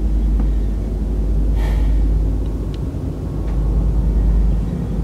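A steady, loud, deep rumble, with a short breathy hiss about a second and a half in.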